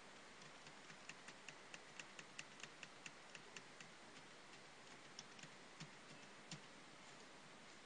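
Computer keyboard being typed on: a faint, irregular run of light key clicks that stops about a second before the end.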